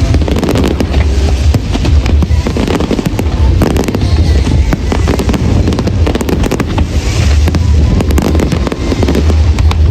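Aerial fireworks going off in a dense barrage, rapid bangs and crackles over a continuous low rumble.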